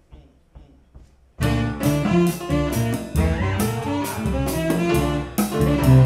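After a quiet second or so, a jazz-funk band comes in loud and together, saxophone over drum kit, bass and piano, and keeps playing.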